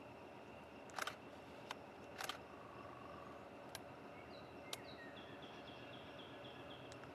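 A small bird's rapid trill of short, evenly repeated high chirps in the second half, over a faint steady outdoor background. Two sharp clicks about one and two seconds in are the loudest sounds, with a few fainter ticks.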